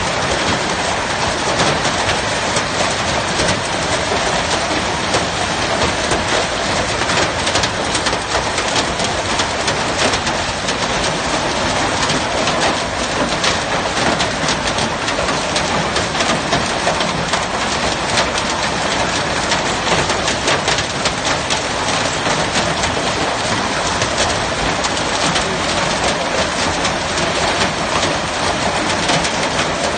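Heavy hail falling: a loud, steady clatter of countless hailstones striking the ground.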